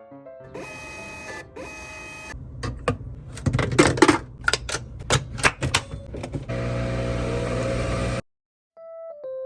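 A quick run of sharp clicks and knocks, then a steady mechanical whir lasting about a second and a half that cuts off suddenly. Soft piano music comes back near the end.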